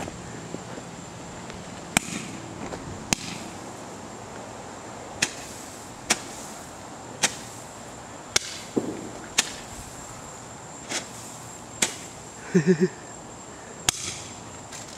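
Fireworks going off: a string of about ten sharp cracks, spaced roughly a second apart and somewhat irregular.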